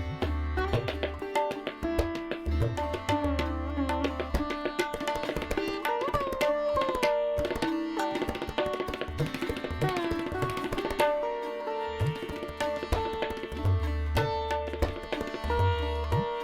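Background music: Indian-style instrumental with tabla drums and a sliding melodic line over a steady beat.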